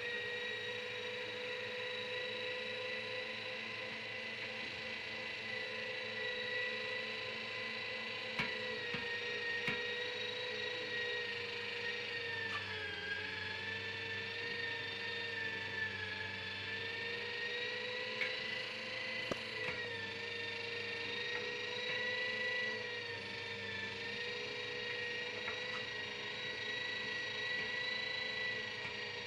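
Vestel electric meat grinder running steadily with a high whine while mincing raw meat; its pitch dips slightly a few times.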